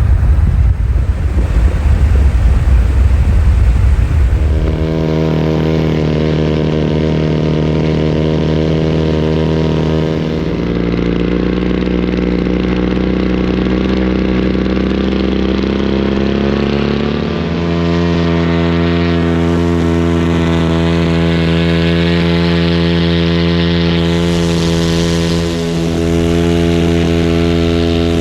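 Paramotor engine running steadily under power, a loud droning note whose pitch shifts a couple of times with the throttle. A heavy low rumble dominates the first few seconds.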